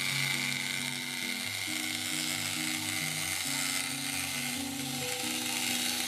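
1930s Meccano clockwork motor running, a steady whirring of spring-driven gears, under background music with a moving bass line.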